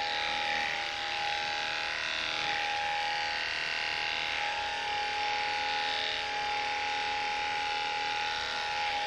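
Cordless pet grooming clippers running with a steady, even hum while shaving a dog's fur.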